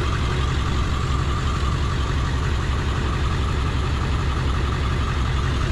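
Truck engine idling steadily, a low even rumble.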